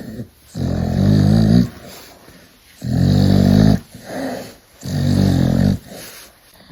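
A dog giving three long, low, rough vocal sounds of about a second each, with softer, shorter ones between them.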